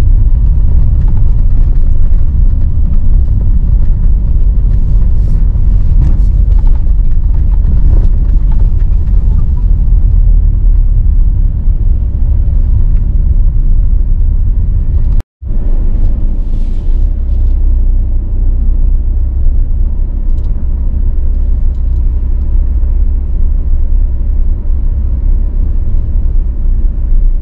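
A VW T6.1 Transporter campervan driving slowly over a rough road: a steady low rumble of engine and road noise. The sound cuts out for a moment about fifteen seconds in, then carries on unchanged.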